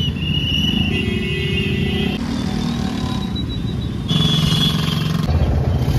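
Road traffic with motor vehicle and motorbike engines, heard in a few short clips cut together, with music underneath.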